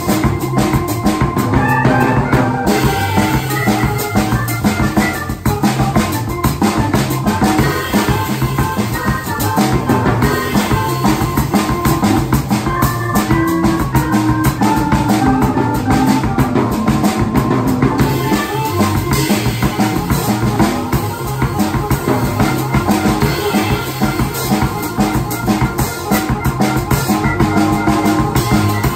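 Organ-and-drums jazz duo playing live: a Viscount electronic organ, its bass line played on the pedalboard, over a drum kit with cymbals and snare.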